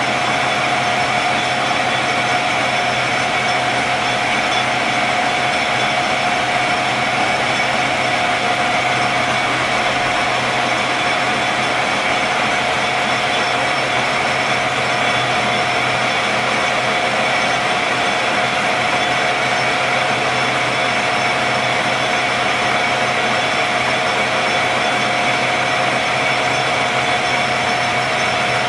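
Roskelley 14-inch by 40-inch engine lathe running with its spindle and three-jaw chuck turning: a steady mechanical whine with several constant high tones over an even hum, unchanging throughout.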